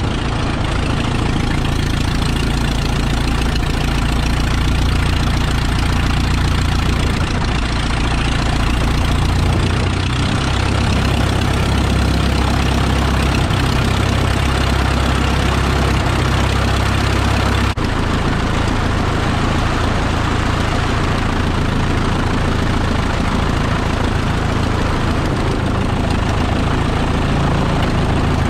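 Walter Minor 4-III four-cylinder inverted inline engine of a Bücker Jungmann biplane idling steadily with the propeller turning, moments after a hand-propped start. The engine note shifts slightly a few times, with a brief dip in level about two-thirds of the way through.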